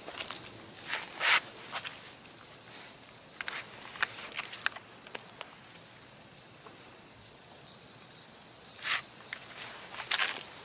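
Steady high-pitched insect chorus of crickets, with scattered footsteps on the trail, more of them in the first second or so and near the end.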